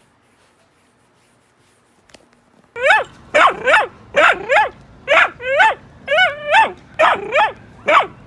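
A dog barking: a quick run of about a dozen sharp barks, some in pairs, starting about three seconds in after near quiet.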